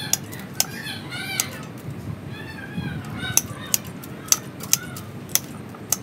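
Pruning shears snipping through bonsai twigs, about nine sharp cuts at uneven intervals. Short high wavering calls are heard in the background.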